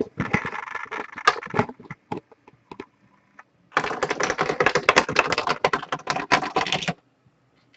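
Rapid clicking and tapping in two bursts: scattered clicks at first, then a dense run of about three seconds that stops abruptly.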